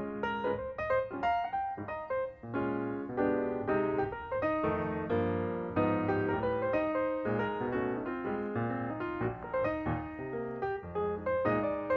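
Background piano music: a steady flow of chords and melody notes.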